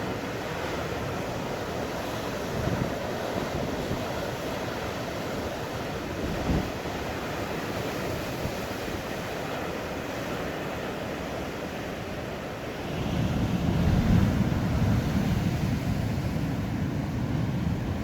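Rough sea surging and breaking in strong wind, with wind buffeting the phone's microphone. The low rumble of the surf swells louder about two-thirds of the way through.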